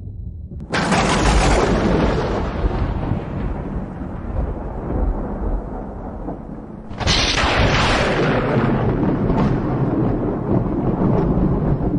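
Two thunderclaps: a sudden crack about a second in and another about seven seconds in, each rolling into a long rumble that fades slowly.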